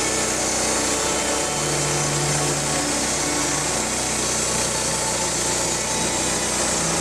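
Petrol-engine band sawmill running with its band blade cutting through a log: a steady engine note under the dense, even noise of the saw.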